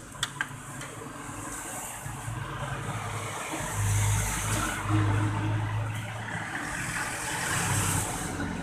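A motorcycle engine running, revving up and down with a few sharp clicks at the start; it is loudest about four and five seconds in and again near the end.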